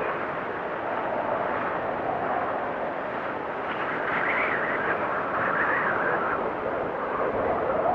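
Blizzard wind blowing hard, a steady rush with howling gusts whose pitch wavers up and down, rising to a higher whistle in the middle and falling back near the end.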